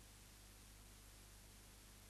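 Near silence: only a faint steady hiss with a low hum underneath.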